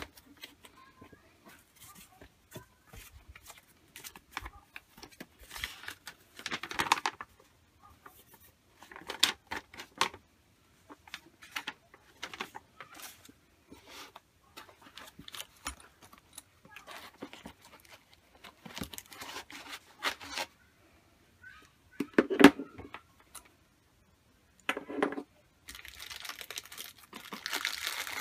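Hands unpacking a cardboard box: irregular rustling and scraping of cardboard flaps and foam packing, with light clicks and clinks as the metal pipe clamp, power adapter and motor unit are lifted out and set down.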